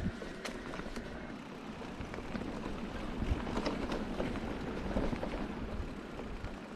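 Specialized Kenevo e-mountain bike being ridden over a rough trail: a steady rumble of tyres on stony ground and wind on the microphone, with scattered small clicks and rattles from stones and the bike.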